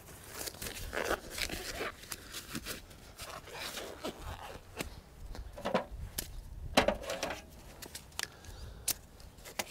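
Irregular light clicks, taps and scrapes, with a few sharper knocks around the middle.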